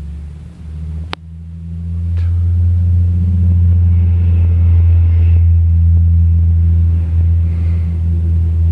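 Low rumble of moving air from a ceiling fan coasting down, buffeting the microphone. The rumble swells about two seconds in and stays loud, with a sharp click about a second in.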